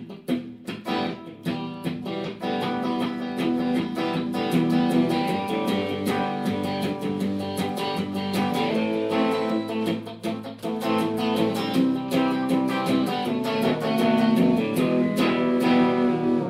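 Guitar-like plucked string instrument played in a quick, even run of picked and strummed notes and chords.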